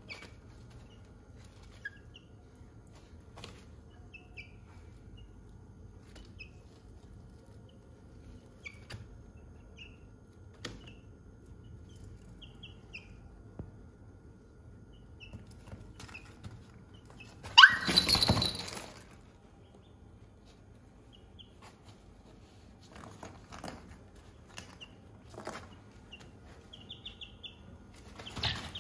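Young chickens giving short chirps now and then, with light clicks from scratching and pecking on a tarp floor. About two-thirds of the way in comes a loud rustling burst lasting about a second and a half.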